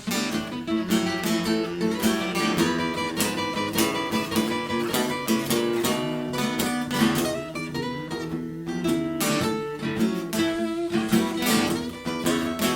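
Acoustic guitar playing an instrumental blues passage, busy picked notes mixed with strummed chords, with no singing.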